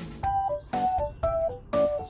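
Background music: a light keyboard melody of short, bouncy notes over a drum beat.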